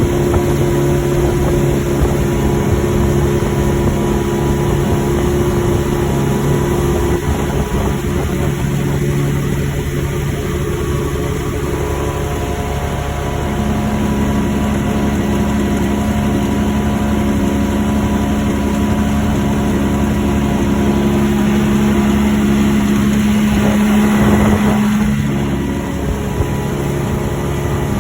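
An engine running steadily, its pitch shifting a few times, with a brief rise about twenty-four seconds in.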